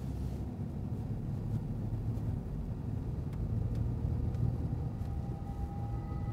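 Pickup truck engine running with a steady low rumble, with faint ticks over it. Faint music tones come in near the end.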